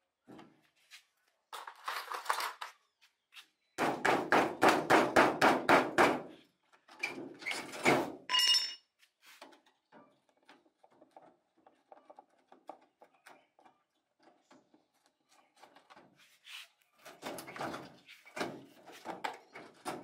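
Screwdriver work on a washing machine's plastic top frame: a fast run of about ten loud knocks, some four or five a second, a few seconds in. A brief squeak follows, then quieter scraping and clatter of tool on plastic.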